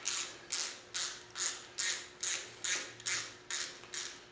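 Ratchet wrench clicking in quick, even strokes, about two a second, as bolts are backed out to remove a cover from an air compressor pump.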